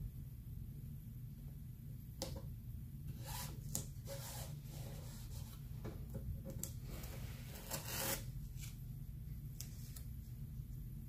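Intermittent rubbing and scraping by hand across a surface, in short strokes with a longer one about seven seconds in, over a steady low room hum.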